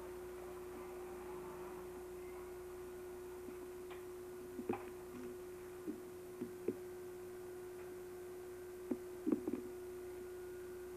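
A steady hum at one pitch, with a few short clicks and knocks scattered through the middle.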